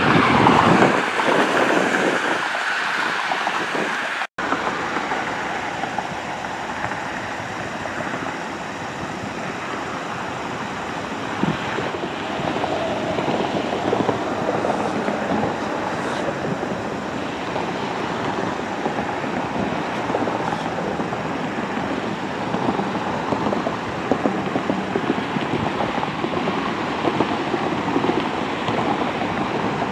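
Jet airliner engines giving a loud, steady rush as a twin-engine widebody climbs away after takeoff, with a sudden break about four seconds in, after which the steady jet noise carries on.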